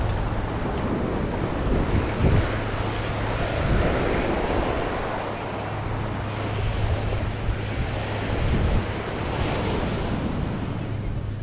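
Wind buffeting the microphone, in gusts, over the steady rush of surf breaking on a sandy beach.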